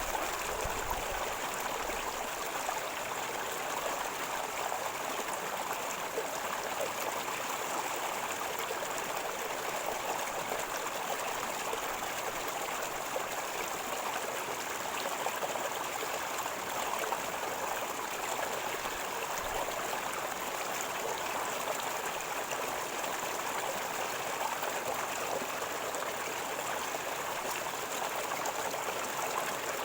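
Shallow river water running and gurgling over rocks in a steady, unbroken rush.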